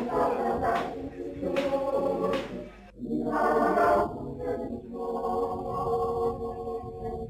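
A choir singing in harmony, ending on a long held chord.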